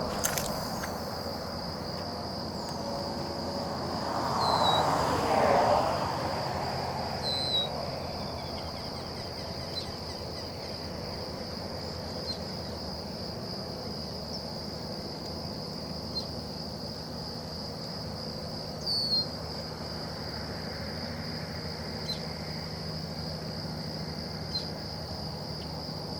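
Steady high-pitched drone of insects calling, with a few short bird chirps scattered through it. A brief swell of rushing noise rises and fades about five seconds in, and a low hum comes in near the end.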